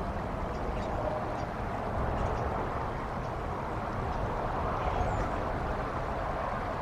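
Steady rushing wind, with low buffeting of the wind on the microphone.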